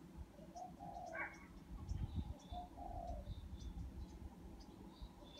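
Outdoor birdsong: a low cooing call, a short note followed by a longer one, heard twice, among faint high chirps from small birds, over a low background rumble.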